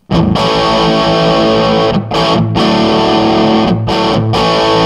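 Electric guitar played with heavy overdrive through a Marshall Lead 12 mini stack, a 12-watt solid-state head driving two 1x10 cabinets, set for a classic 80s crunch. It plays loud sustained chords, with a few short breaks between chord changes around two seconds and about four seconds in.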